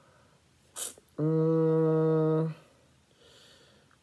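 A man hums a thoughtful "hmm" on one level note for about a second and a half, while deciding what to play. Just before it there is a short breathy sniff.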